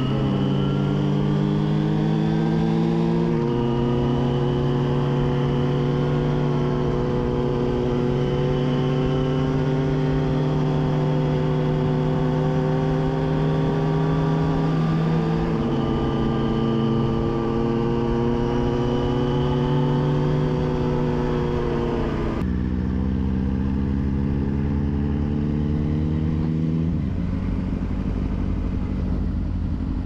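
Yamaha FZ6's inline-four engine running under way, heard from the rider's seat. Its note creeps slowly upward and drops a step about four times.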